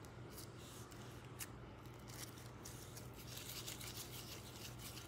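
Faint sticky clicks and crackles of a small ball of bead-studded slime being pressed and squished under fingertips, with a thicker run of crackling about three to four seconds in.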